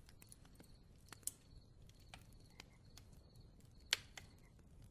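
Faint crackling of a bonfire: scattered sharp pops and snaps over a low hiss, with two louder pops about a second in and near the end.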